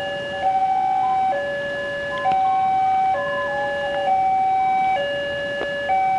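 Electronic level-crossing warning alarm sounding a steady two-tone hi-lo pattern, each tone held just under a second, signalling that a train is due at the crossing.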